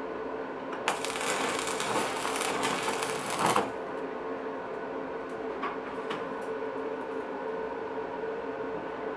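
Electric arc welding on galvanized C-profile steel: the arc crackles and sputters for about three seconds, starting about a second in, then stops. A steady hum continues underneath.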